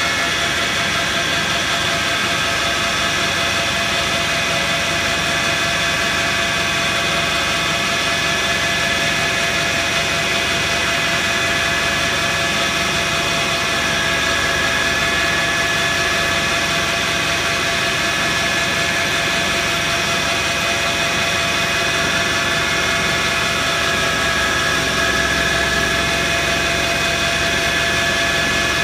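Metal lathe running steadily, its motor and drive giving several held whining tones over an even mechanical hum.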